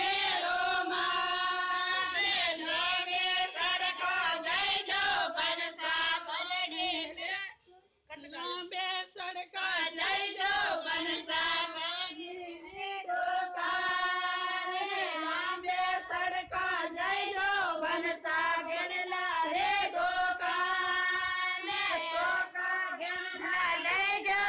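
Women's voices singing a folk song together, unaccompanied, with a short break about eight seconds in.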